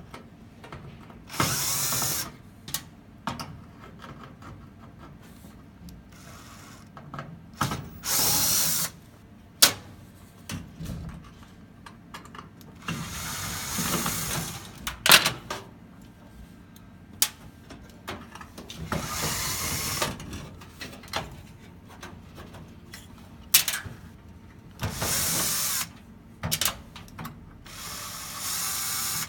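Power drill-driver backing out the screws of an arcade cabinet's side wall: six short runs of a second or two each, with clicks and knocks between them.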